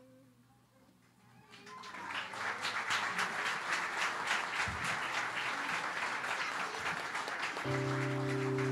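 A brief hush, then an audience clapping, building up about two seconds in and going on steadily. Near the end an instrument starts holding a low sustained chord.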